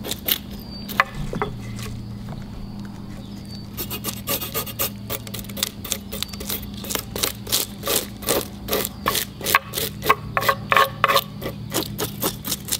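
A horse curry comb scraping the scales off a whole bluegill on a wooden cutting board, in rapid rasping strokes. A few scrapes come early, then the strokes run fast and dense from about four seconds in, over a steady low hum.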